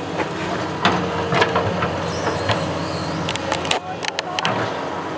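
Construction machine's engine running steadily, with repeated sharp metallic clicks and knocks, a quick cluster of them about three to four seconds in.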